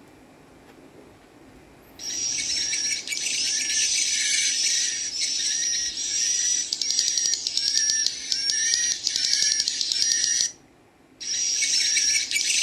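Recorded swiftlet calls played through a speaker: the chicks' dense, rapid high chittering ('ci ci ci cut cut cut'), mixed with adult swiftlet calls. It starts about two seconds in, stops briefly near the end, then resumes.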